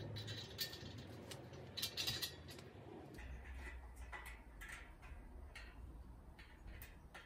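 Scattered light clicks and taps of bench parts and tools being handled during flat-pack assembly, over a low hum.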